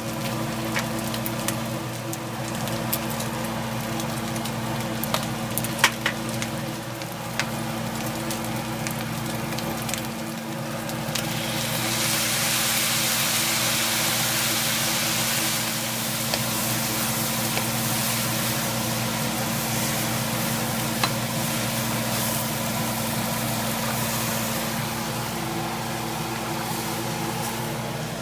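Sliced pork belly and shiitake mushrooms sizzling in a hot wok, stirred with a wooden spatula that clicks against the pan. About twelve seconds in, the sizzle turns louder and hissier as soy sauce hits the hot pan, then eases after a few seconds; a steady low hum runs underneath.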